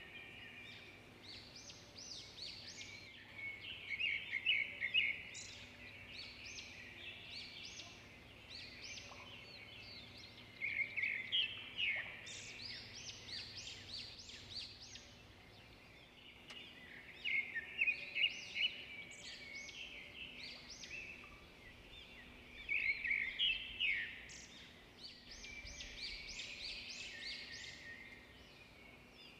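Songbirds singing: quick high chirps, with a louder burst of rapid chirping about every six seconds and quieter twittering between.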